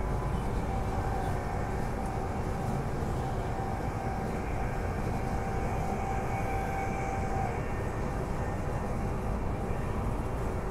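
Steady running noise of a Transperth B-series electric multiple unit at speed, heard from inside the carriage. A thin steady whine runs over the rumble and stops about seven seconds in.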